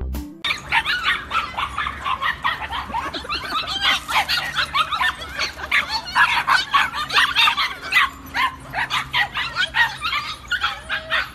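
A group of puppies yipping and whimpering together, many short high calls overlapping without a break, starting about half a second in.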